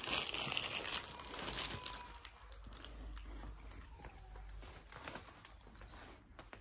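Plastic goods rustling and crinkling as they are handled, with small clicks and knocks. It is loudest in the first two seconds and softer after.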